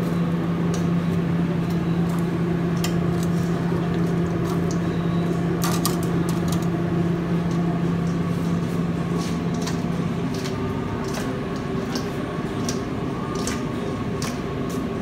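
Commercial kitchen noise: a steady appliance hum that stops about ten seconds in, under scattered clicks and clatter of utensils and dishes.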